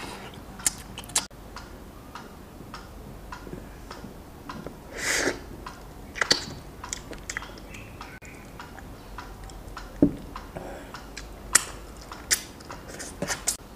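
Close-up eating sounds of someone gnawing and chewing meat off a braised beef bone: scattered wet clicks and lip smacks, with a short breathy suck about five seconds in.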